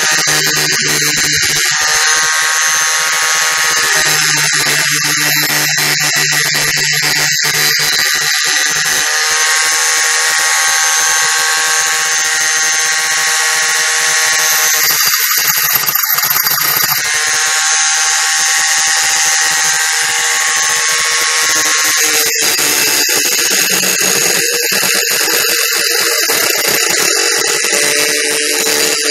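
Corded angle grinder running with its disc against a metal tube, a steady high motor whine over a dense grinding hiss. The whine shifts in pitch several times.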